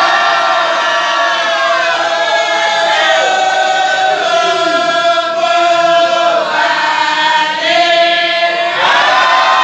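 A group chanting a wadifa, a Sufi litany, together in unison: long held, rising and falling phrases, a new one starting every two to three seconds.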